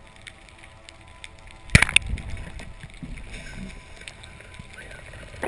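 Water sloshing and gurgling, with one sudden sharp knock or splash a little under two seconds in that is the loudest sound, then noisy water dying away.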